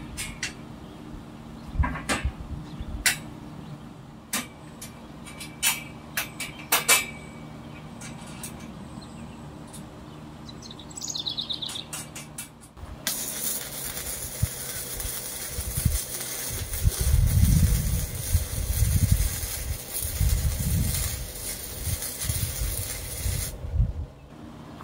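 A few sharp metal knocks and taps on a steel frame, then an electric arc welder running for about ten seconds, a steady hiss that starts suddenly and cuts off sharply shortly before the end.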